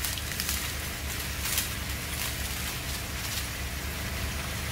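Chicken pieces sizzling steadily in a hot wok, with a low hum underneath and a few brief crackles.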